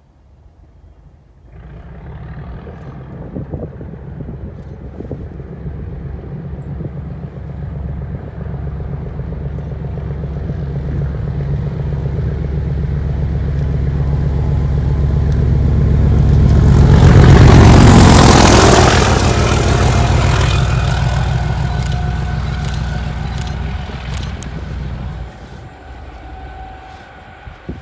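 A Class 37 diesel locomotive's English Electric V12 engine passing: a low, steady engine drone comes in about two seconds in and grows louder. It peaks about two-thirds of the way through, with a rush of wheel and rail noise as it goes by, then fades away.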